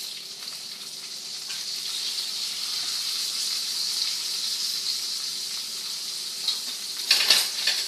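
Lemon slices sizzling in hot olive oil in a stainless steel frying pan, a steady hiss that slowly grows louder. A few sharp clatters near the end.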